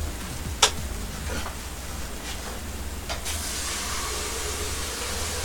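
A pot of beef and radish soup simmering, with a steady hiss and bubbling. There is a sharp click about half a second in, and the hiss grows louder from about three seconds in.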